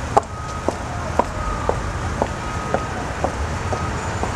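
City street traffic noise, with a regular sharp ticking about twice a second over it.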